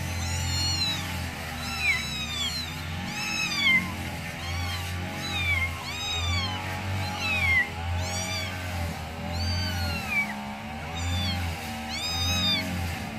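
Young kittens mewing repeatedly in short, high-pitched calls that rise and fall, about one a second, over background music.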